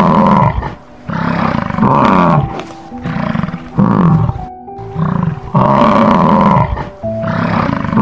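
American bison roaring: a string of loud calls, each dropping in pitch, over background music.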